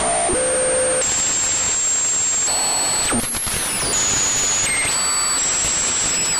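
Synthesized sci-fi radio interference, like an odd radio being tuned: a steady hiss of static with thin whistling tones that jump to new pitches every second or so, and a short downward sweep about three seconds in.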